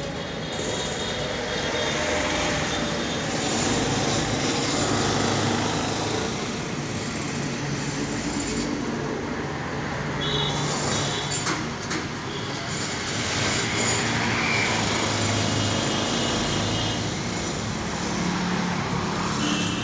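Steady traffic noise from a busy road, with vehicles passing and brief high-pitched tones about ten seconds in and near the end. A single sharp click comes about halfway through.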